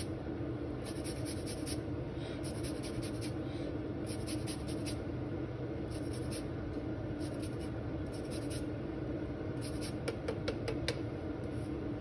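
Lime peel scraped across a flat rasp grater, zesting: runs of short scraping strokes with brief pauses between, over a steady low hum. A few sharper clicks come near the end.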